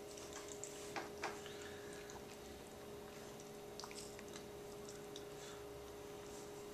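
Faint chewing and soft mouth clicks of someone eating, with a few small ticks, two close together about a second in, over a steady low hum in a small room.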